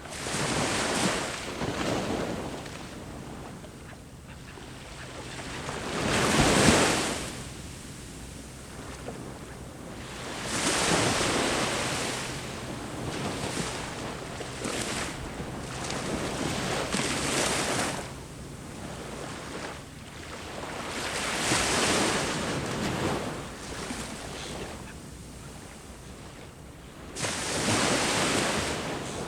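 Ocean waves breaking on the shore, a rush of surf that swells and fades about every five seconds, the loudest wave about six seconds in.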